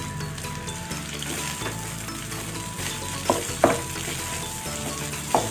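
Garlic fried rice sizzling in oil in a nonstick pan as it is stirred with a wooden spatula, which knocks sharply against the pan three times in the second half.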